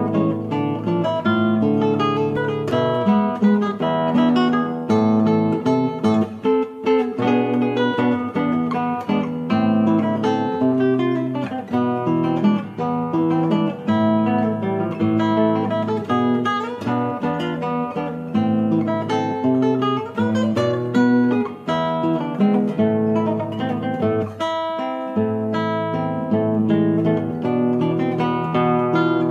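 Background music: an instrumental piece on plucked and strummed acoustic guitar.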